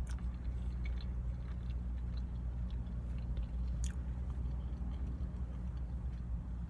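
Close-up chewing of a soft, tortilla-wrapped shredded chicken item, with a few faint mouth clicks, over a steady low hum.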